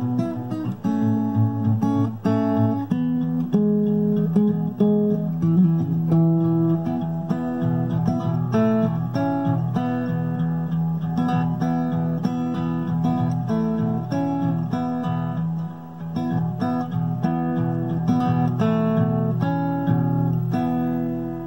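Acoustic guitar playing an instrumental, quick picked notes over a held bass line, fading out near the end as the piece closes.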